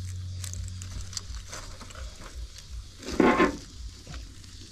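Light scratching and rustling as the old well's cover is handled, with one louder scrape about three seconds in.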